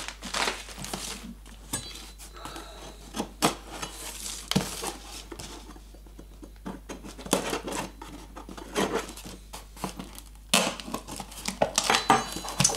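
A kitchen knife clicking and scraping against a taped cardboard box as the packing tape along its seam is slit. A plastic mailer bag crinkles at the start, and the scraping grows busier near the end.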